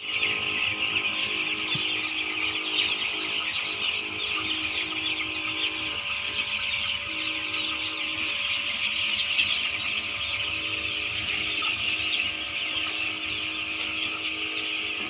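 A large flock of young broiler chicks peeping continuously, many high chirps overlapping, over a steady low hum.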